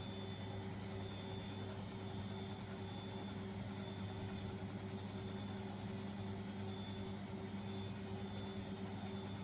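Beko washing machine running steadily in its spin-and-drain cycle: an even mechanical hum with a faint high whine over it.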